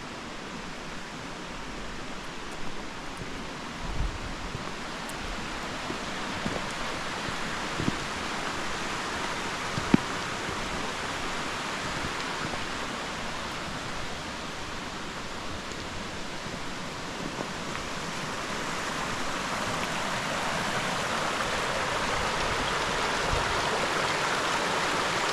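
Mountain stream rushing through a rocky gorge, a steady roar of water that grows slightly louder toward the end, with a few brief knocks, the sharpest about ten seconds in.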